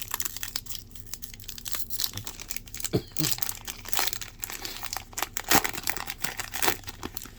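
A trading card pack's plastic wrapper being torn open and crinkled by hand, an irregular crackling and rustling with a few louder tears.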